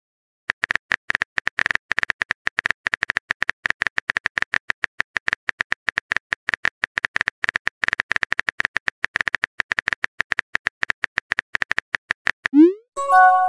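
Rapid phone-keyboard typing clicks from a texting-app sound effect, many a second, running on without a break. Near the end comes a short rising blip and a brief chime as a new chat message pops up.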